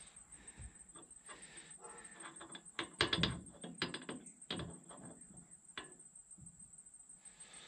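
Metal clicks and clinks of a U-joint cross and a needle-bearing cap being handled and fitted into a drive-shaft yoke by hand. The clicks are loudest in a cluster about three to five seconds in.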